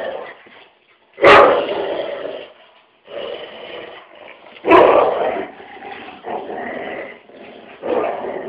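Two dogs play-fighting, with growls and grumbles throughout and two loud, sudden barks, one about a second in and one around the middle.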